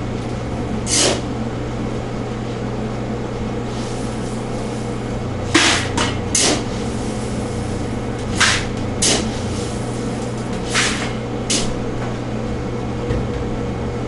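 Green coffee beans being scooped from a burlap sack and tipped into a plastic bucket, rattling in about eight short, irregular bursts over a steady low machine hum.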